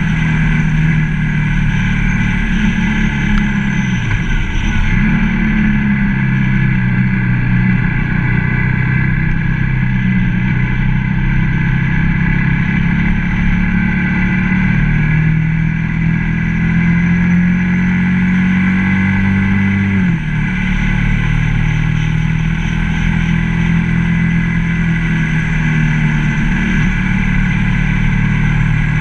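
Ducati ST3S V-twin motorcycle engine running under way, heard from on the bike. Its pitch dips and recovers about four seconds in and drops abruptly about twenty seconds in, then settles steady again.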